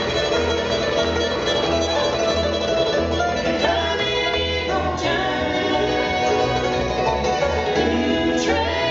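Bluegrass band playing an up-tempo number live, with banjo, fiddle, mandolin and guitar over a steady bass line. Two quick upward slides ring out, one about halfway through and one near the end.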